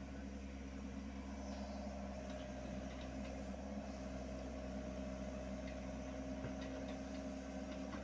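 Hyundai R80-7 mini excavator's diesel engine running steadily while the machine works its arm and bucket, with a higher whine that swells in the middle and fades near the end.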